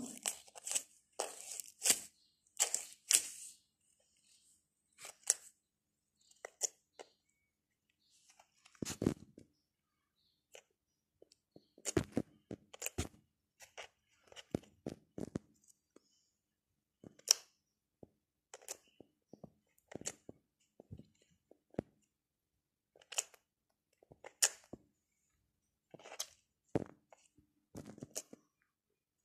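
Glitter slime being poked and squished with fingers, giving irregular short clicks and pops with quiet gaps between.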